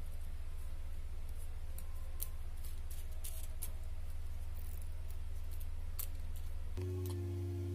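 Faint small plastic clicks and taps as a ballpoint pen is taken apart by hand and its refill and spring are pulled out, over a steady low hum. Near the end the hum gives way to a sustained low tone of several steady pitches.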